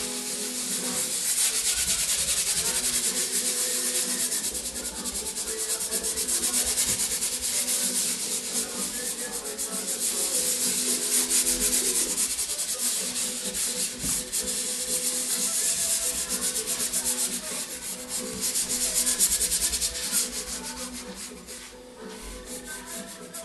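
Palm and fingers rubbing dry pastel into the paper, a continuous scratchy scrubbing of skin on chalky pastel that gets lighter near the end.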